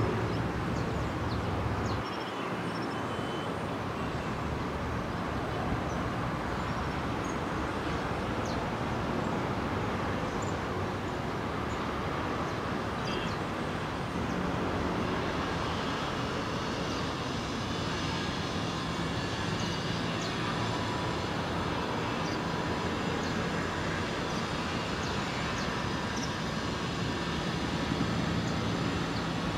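Steady, distant aircraft noise with no rhythm or sudden events; a faint steady hum comes in about halfway through.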